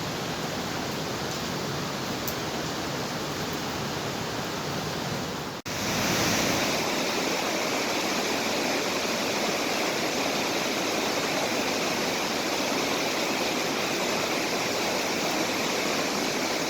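Steady rush of a waterfall. It breaks off for an instant about five and a half seconds in, then carries on slightly louder and brighter.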